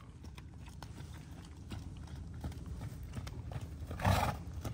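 Horse trotting, its hooves giving a steady run of soft hoofbeats, with a brief louder rush of noise about four seconds in.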